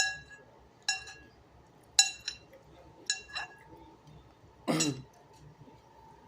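A spoon clinking against a soup bowl while eating soup, about six short ringing clinks in the first few seconds. A short vocal sound from the eater follows near the end.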